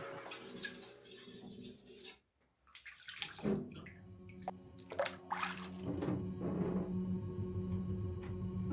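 Water sloshing and splashing as a chef's knife blade is swished through a tray of water to rinse it, a few separate splashes in the second half.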